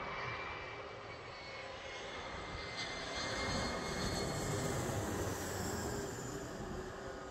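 Jet engines of a twin-engine regional jet on final approach with gear down, passing low overhead: a steady engine whine whose pitch sinks slightly, growing louder with higher whine tones about three seconds in as the jet comes over, then easing near the end.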